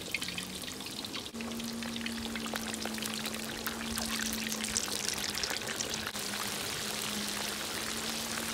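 Chicken drumsticks coated in cornstarch deep-frying in a wok of hot oil, just lowered in: a dense, steady crackle and sizzle of hard-bubbling oil.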